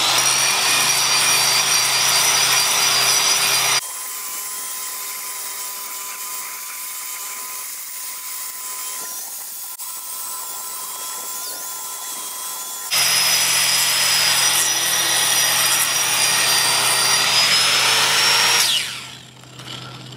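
Electric angle grinder with a diamond wheel grinding concrete along a crack: a harsh scraping under a steady high whine. After a few seconds the sound drops to a quieter, steadier running stretch, then the full grinding returns, and near the end the grinder is switched off and its whine falls away.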